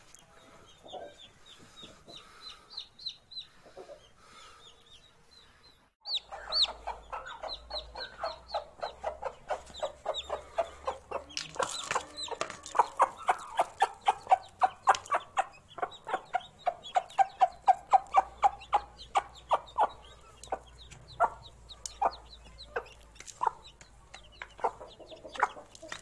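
A broody hen and her newly hatched chicks calling. The first few seconds hold faint high chirps; about six seconds in, a quick, steady run of short clucks and peeps begins, several a second, and lasts to the end.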